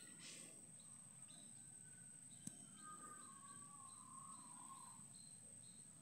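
Faint countryside ambience of birds and insects: a steady high-pitched insect drone, a string of short high chirps, and a faint gently wavering bird whistle lasting about two seconds from near the middle. There is a single sharp click about halfway through.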